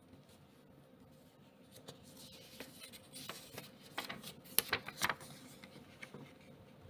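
Small paper Notgeld banknote being picked up off a tabletop and handled by fingers: a run of light crinkles, rustles and ticks, thickest and loudest about four to five seconds in.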